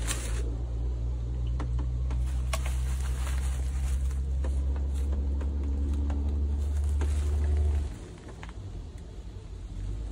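A steady low drone that drops away about eight seconds in, with scattered light rustles and clicks of bubble wrap and cardboard packaging as an air rifle is handled in its box.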